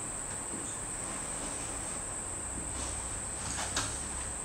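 Steady high-pitched chorus of crickets, with a brief faint scratch near the end.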